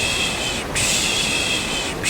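Steady white noise with a rhythmic 'shh' shushing ('piş piş') laid over it, the kind used to lull a baby to sleep. One shush ends under a second in and the next follows straight after.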